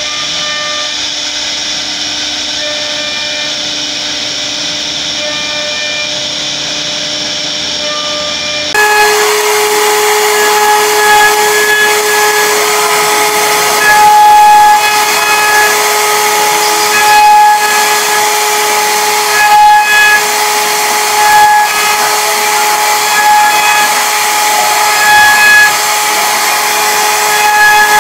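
CNC router spindle whining steadily as its bit carves relief into a wooden door panel, with a hiss of cutting. About nine seconds in the sound jumps louder and brighter and the whine steps higher.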